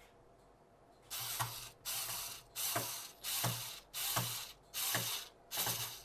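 Seven quick, evenly spaced ratcheting rasps, starting about a second in, each about half a second long and dropping in pitch as it goes.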